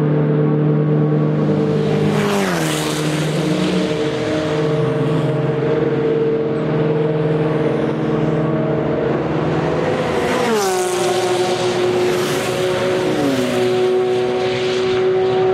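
Race cars on open exhausts going by at speed, one after another, each engine holding a steady note that drops in pitch as the car passes, most clearly about two and a half seconds in and again about ten and a half seconds in.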